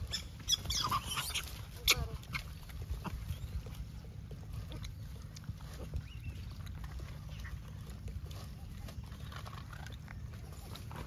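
Gray langurs giving sharp squeals and chattering calls for about the first two seconds, then only faint scattered calls.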